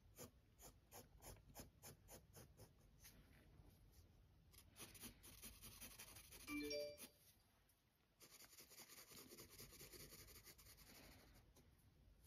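Soft charcoal pencil scratching on textured, sandpaper-like sketchbook paper in faint, short, quick shading strokes, about three a second. About halfway through, a brief chime-like tone is the loudest sound.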